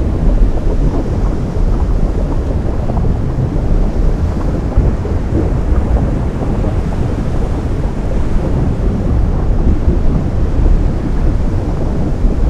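Sea water meeting molten lava: a continuous deep rumble of surf with a dense crackle over it, steady in loudness.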